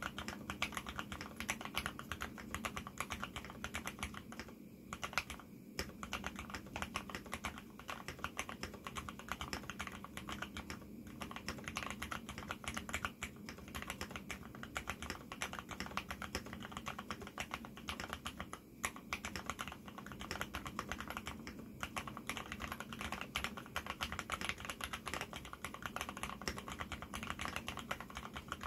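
Typing on an AR87 mechanical keyboard fitted with lubed Cherry MX Black linear switches on 70 g springs, with lubed stabilizers and silicone foam dampening in the case: a steady stream of keystrokes broken by a few brief pauses.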